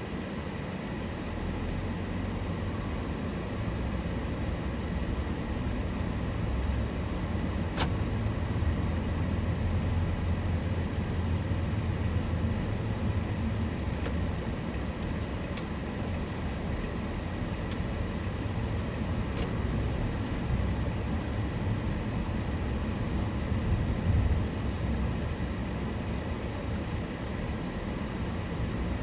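Car driving: a steady low rumble of engine and road noise, with a single sharp click about eight seconds in.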